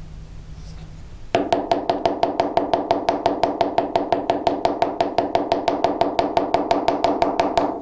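Mallet rapidly tapping a steel bezel-setting punch, about seven taps a second with a short metallic ring on each. The punch is pressing a bezel cup's wall down over a small stone to set it. The tapping starts about a second in and stops just before the end.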